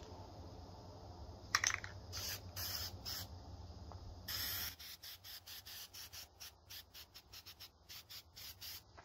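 Aerosol can of high-heat spray paint hissing in short bursts, with one longer spray about halfway through and then a quick run of short sprays.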